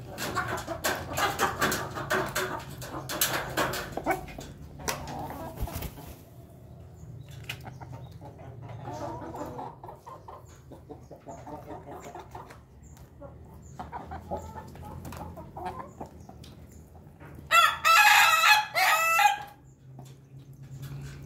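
Roosters clucking and calling, with one loud crow of about two seconds near the end.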